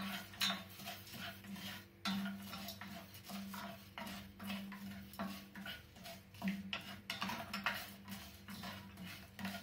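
A wooden spatula stirs and scrapes whole spices (coriander and cumin seeds, cardamom pods, peppercorns, cinnamon sticks and dried limes) around a non-stick frying pan as they are dry-toasted for curry powder. The seeds rattle and scrape in a string of irregular strokes over a steady low hum.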